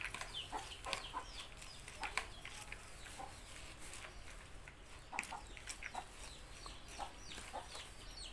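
A hand kneading and tossing a wet salad of shredded pomelo, shrimp and leaves in a plastic bowl: irregular soft wet squelches and crackles, with a few short calls in the background.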